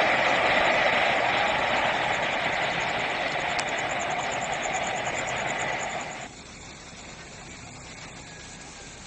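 A passing train running on the rails: a loud, steady rushing noise that slowly fades, then cuts off abruptly about six seconds in, leaving only faint background sound.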